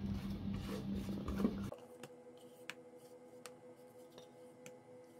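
Quiet kitchen room tone: a low steady hum with a few faint handling knocks. About two seconds in, the sound cuts to near silence with a faint steady hum and a few light ticks.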